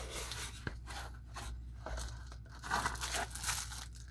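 Cardboard mailer box being opened by hand: irregular scraping and rustling of the cardboard lid and flaps, with crinkling of plastic wrap toward the end as the shrink-wrapped watch box inside is handled.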